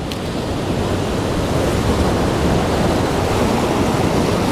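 Ocean surf breaking against rocks: a loud, even rush of water noise that swells over the first second and then holds.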